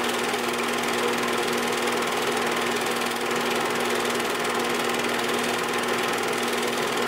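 An 8mm film projector running: a steady mechanical whirr and rapid clatter of the film transport, with a constant hum.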